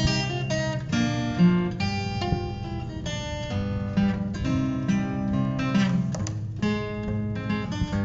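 Background music: acoustic guitar, strummed and plucked.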